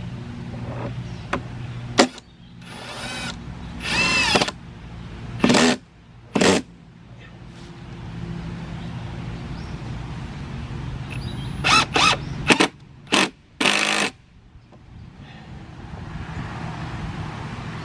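Cordless Milwaukee impact driver run in short trigger bursts while driving screws. There are a few quick runs in the first third, a pause, then another cluster of brief bursts. The motor's pitch rises and falls with each pull.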